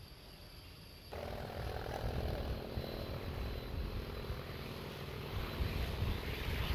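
Vought Corsair's 18-cylinder radial engine and propeller running at high power on the take-off run. The steady engine sound starts suddenly about a second in and grows louder towards the end.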